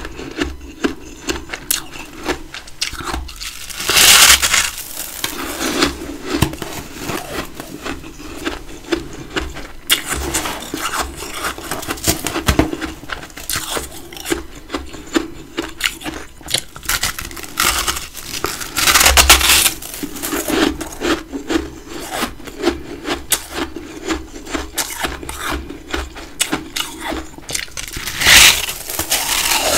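Close-up crunching and chewing of big chunks of freezer frost: a dense run of crisp, grinding crunches, with three louder bites about 4 seconds in, around the middle and near the end.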